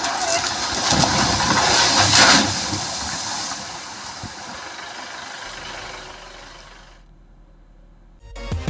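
Rushing floodwater from a dam release, a dense hiss that swells about two seconds in and then fades away. Music starts near the end.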